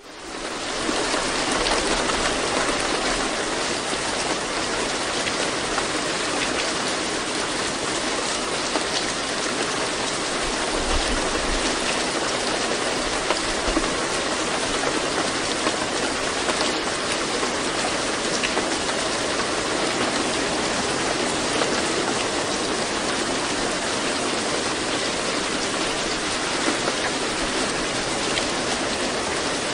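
Steady rain falling, a continuous hiss of drops that fades in over the first second and then holds even.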